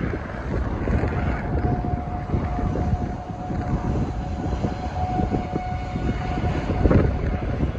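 Strong wind buffeting the microphone in a low, fluttering rumble, with a thin steady tone held from about a second in until near the end, where a loud gust flares.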